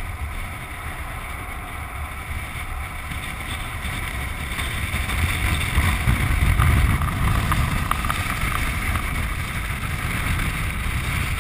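Wind rushing over the microphone and a land sailer's wheels rumbling across the hard dry lake bed as it sails along. The rush grows louder about halfway through, then eases a little.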